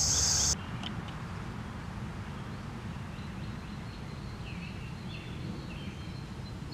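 Crickets trilling in a steady high buzz that cuts off suddenly about half a second in. Then quiet outdoor ambience: a low steady rumble with a few faint bird chirps about four and five seconds in.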